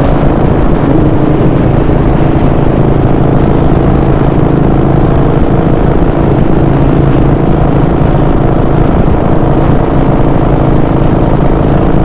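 Harley-Davidson Sportster V-twin engine running at a steady speed while riding, with a low rumble and road and wind noise.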